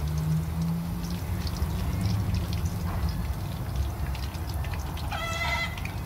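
Sliced onions frying in hot oil in a wok, with faint crackling over a steady low rumble. About five seconds in, a short high-pitched cry holds one pitch for about half a second.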